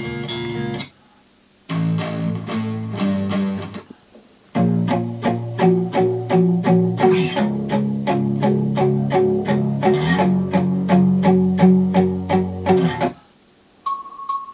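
Guitar music played from a CD on a Sony RCD-W100 CD player, breaking off briefly twice and starting again as tracks are skipped with the jog dial. A steady high tone begins near the end.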